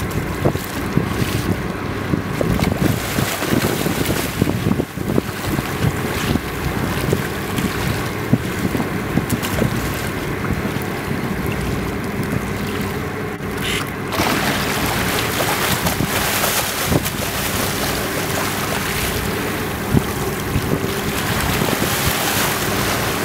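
A fishing boat's engine running steadily, with water washing and splashing along the hull and wind buffeting the microphone; the water noise grows louder about fourteen seconds in.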